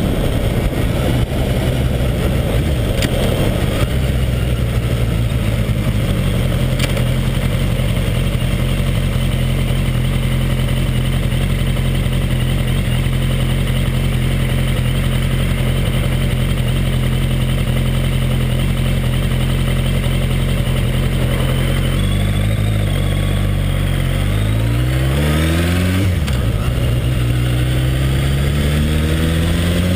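Suzuki 1200 Bandit's inline-four engine idling steadily, then, about three-quarters of the way in, rising in pitch as the bike pulls away before settling into a steady run. The owner hears a slight engine noise from this motor when setting off.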